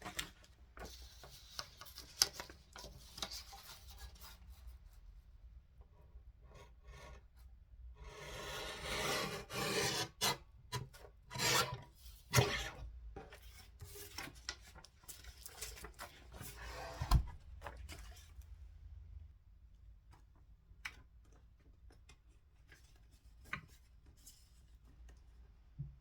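Hands working small craft materials: rubbing and scraping strokes, heaviest in the middle, with scattered light taps and clicks on a work surface.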